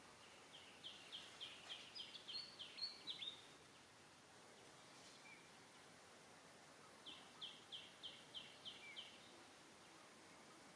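A bird calling faintly in two runs of rapid, evenly repeated high notes, about four to five a second: one run of around ten notes near the start, and a shorter run of about seven notes later on.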